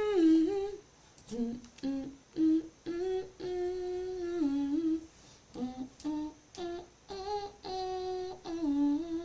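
A person humming a melody in short phrases of held notes, with brief pauses between them.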